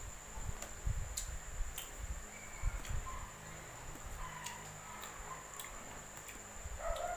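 Chewing and crunching of unripe green mango close to the microphone, with scattered sharp clicks and soft low thumps. A dog starts barking near the end.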